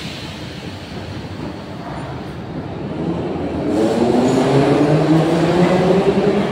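Metro train pulling out of the platform: its traction motors whine, rising in pitch as it gathers speed, and the train grows louder from about three seconds in.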